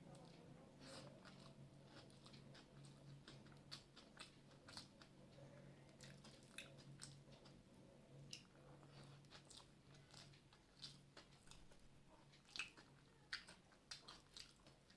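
A person eating a rice meal: faint chewing and mouth clicks with soft crunches, irregular and scattered throughout. A faint steady low hum runs underneath.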